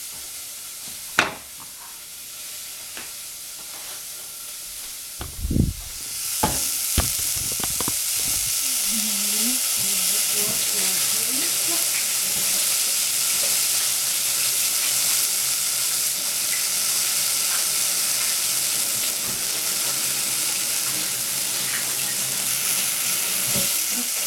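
Chopped green onions frying in a stainless steel saucepan: a few knocks and a thump, then about six seconds in a loud, steady sizzle sets in.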